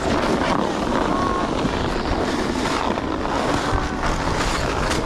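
Steady rushing noise of wind buffeting an action camera's microphone while gliding slowly over packed snow.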